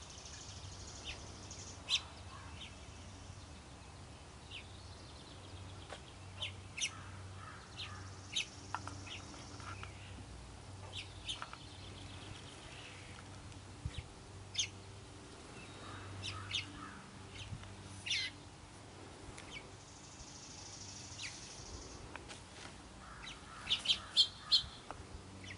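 Small songbirds chirping: short, sharp chips scattered here and there, with a quick run of them near the end.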